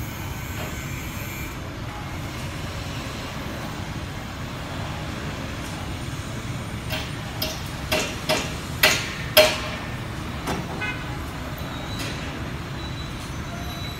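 Steel reinforcing bars clanking against each other, about eight sharp metallic clanks with a short ring. They bunch between about seven and eleven seconds in, and the loudest comes about nine seconds in. A steady low rumble runs underneath.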